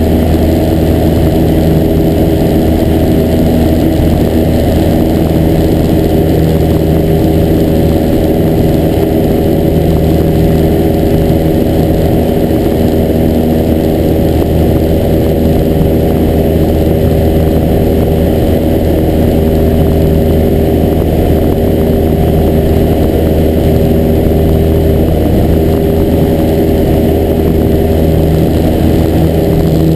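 Cessna 172's piston engine and propeller running steadily in flight, heard inside the cockpit as a loud, even drone with no change in pitch.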